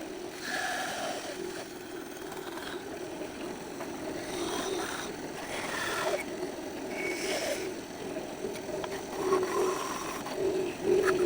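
Mini bandsaw running, its blade cutting through wood, with a steady machine hum and a changing higher sound as the cut goes on.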